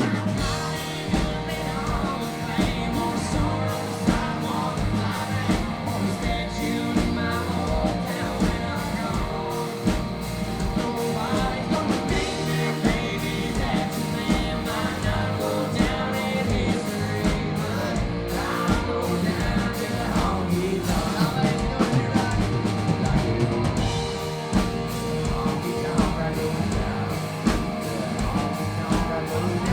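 Live country band playing a song at a steady, loud level, with drums, bass and other instruments, and some singing.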